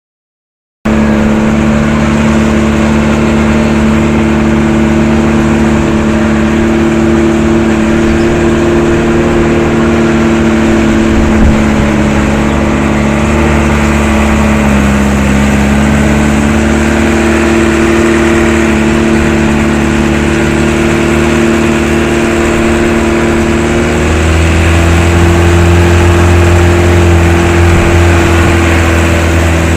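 Truck engine running steadily, with a brief sharp knock about eleven seconds in; about 24 seconds in its note drops lower and gets slightly louder.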